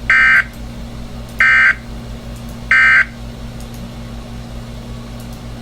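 Three short bursts of SAME digital data tones from an emergency weather-radio broadcast, each about a third of a second long and spaced about 1.3 seconds apart. The short, triple-sent bursts are the end-of-message code that closes the bulletin.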